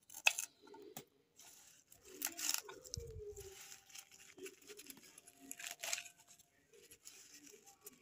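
Small knife cutting fresh radish greens on a wooden board: a few irregular crisp cuts through the stems and leaves, with leaf rustle between them.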